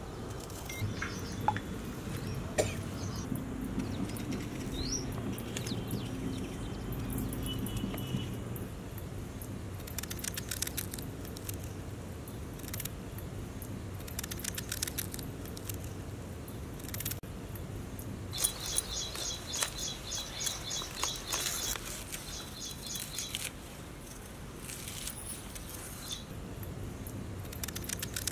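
Outdoor ambience of birds chirping: a few short rising calls, then a quick repeated high call for several seconds in the second half. Soft crunches and clicks of a knife slicing vegetables held in the hand are scattered through.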